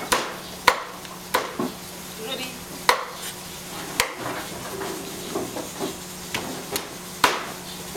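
Chinese cleaver chopping through raw chicken into a round wooden chopping block. There are about six sharp, uneven chops, with lighter knocks and cuts between them.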